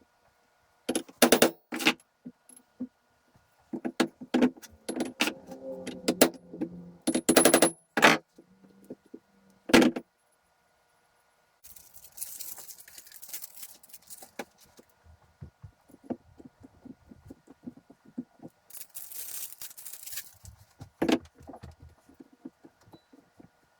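Loose metal parts clinking and clattering as they are handled, some ringing briefly, in the first ten seconds. Later come quieter scattered ticks and two short hisses, the first lasting about two seconds.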